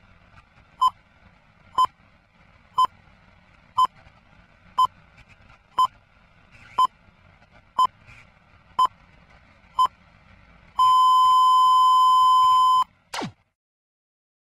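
Film countdown leader beeps: ten short high beeps exactly one second apart over a faint noise, then one long steady beep of the same pitch for about two seconds, ending in a quick downward sweep.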